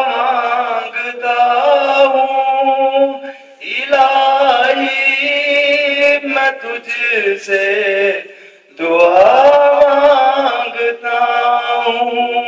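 A man singing a hamd, a devotional song of praise, unaccompanied into a microphone. He sings three long, drawn-out phrases with wavering held notes and breaks briefly for breath between them.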